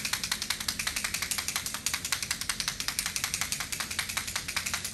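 Handheld plastic noisemaker rattled in a fast, even run of sharp clicks, used as a sound cue in horse training.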